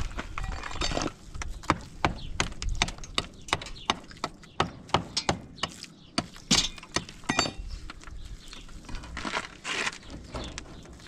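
A run of irregular, sharp knocks and clacks of hard objects, about two to three a second, thinning out after about seven seconds, with a few short scraping noises among them.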